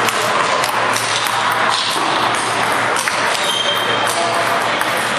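Table tennis forehand loop drill: the celluloid ball struck by rubber-faced bats and bouncing on the table in a steady back-and-forth of sharp clicks. Music plays underneath the whole time.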